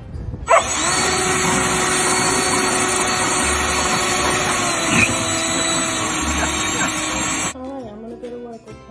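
Handheld leaf blower running at a steady high speed with a constant whine, blowing into a dog's face, then cutting off abruptly about seven and a half seconds in as light plucked-string music takes over.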